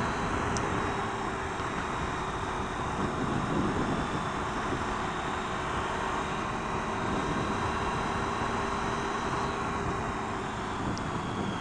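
Wind rushing over a helmet-mounted microphone while riding a Triumph Tiger 800 XRt motorcycle, its three-cylinder engine running steadily beneath the rush of air.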